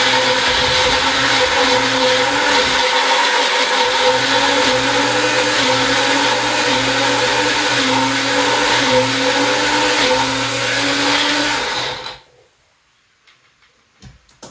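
Magic Bullet personal blender running loud, puréeing canned apples and sugar water into applesauce; its motor whine wavers slightly as the contents churn, then cuts off suddenly about twelve seconds in. A few faint clicks follow near the end as the blender cup is lifted off the base.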